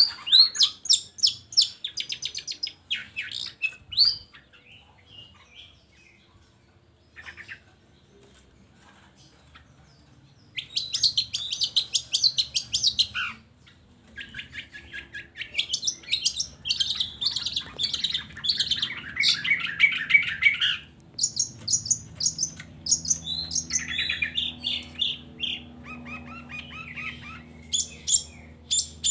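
Long-tailed shrike (cendet) singing in fast, scratchy chattering phrases of varied notes. A lull of a few seconds comes after the opening phrases, then a long, dense run of song.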